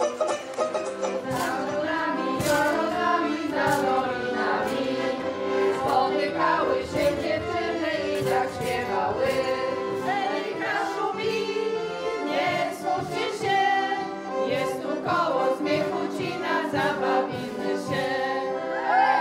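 Group of women singing together, accompanied by an accordion.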